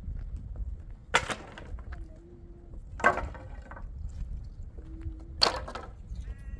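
Three sharp, hard strikes, about two seconds apart, over a steady low rumble.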